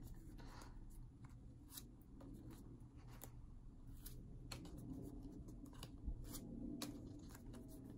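Faint handling of a stack of paper postcards in the hands: soft rustles and scattered light ticks as the cards are shifted and fanned.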